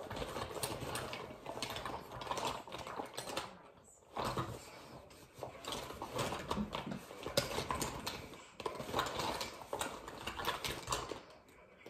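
Rustling and light clattering of small objects being handled, many short clicks and knocks, with a brief lull about four seconds in.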